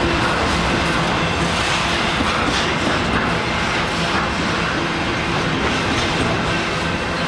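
Canadian Pacific freight train's cars rolling past, steel wheels running on the rails with a steady, loud noise.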